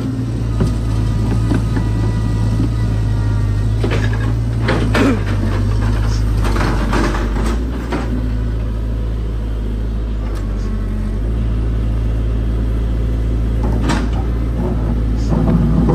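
Caterpillar 312C tracked excavator's diesel engine running steadily under load as it claws up a steep dirt slope with its boom and bucket. Now and then come sharp clanks, with a faint whine at times.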